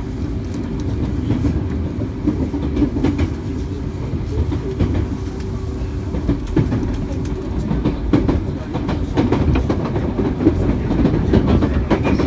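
Running sound of a JR 205 series electric train with inner-fan traction motors, heard inside the car beside the door: a steady low rumble of wheels on rail, with a scatter of rail-joint clicks.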